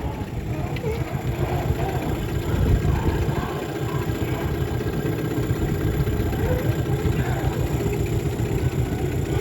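A small boat's outboard motor running steadily.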